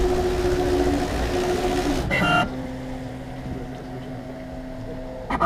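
Fabricator Pro CNC router's motors whining with steady tones as the gantry and spindle carriage travel during an air run, moving through the toolpath without cutting. A short burst of noise about two seconds in, after which the sound is quieter and the tone lower, and a sharp click near the end.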